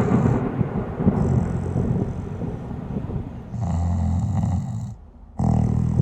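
A sleeping person snoring. A long rattling snore is followed by a shorter, more droning one about three and a half seconds in, then a brief pause near five seconds before the next snore starts.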